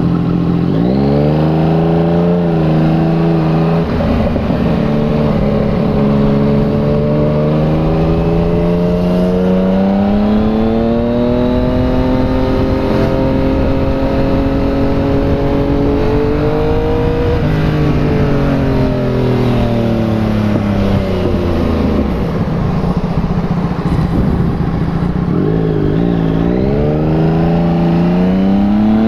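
Yamaha MT-09's three-cylinder engine through a replica Akrapovic exhaust, heard from the rider's seat under way. The engine note climbs slowly under acceleration, drops sharply a little past halfway and falls away as the bike slows, then climbs again near the end.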